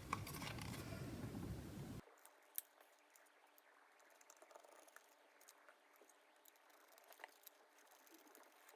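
Near silence with faint, scattered small clicks of screws being driven back in with a small screwdriver. A faint hiss cuts off about two seconds in.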